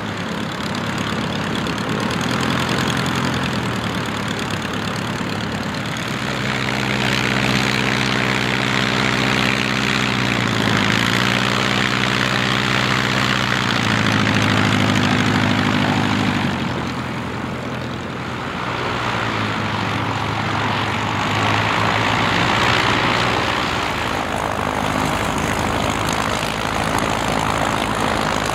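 Light aircraft piston engines and propellers running at taxi power as the planes taxi past one after another. The engine note swells and fades as each aircraft goes by.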